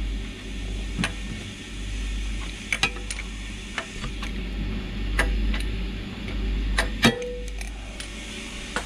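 Adjustable wrench turning out a brass zinc-anode plug on a marine diesel generator: scattered metallic clicks and knocks, with one ringing clank about seven seconds in, over a low rumble.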